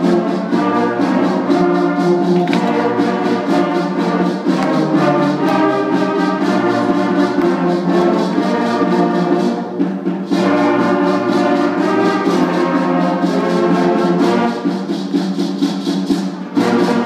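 Sixth-grade school concert band of flutes, clarinets and brass playing a piece, with sustained chords. It swells to a loud final chord near the end and cuts off.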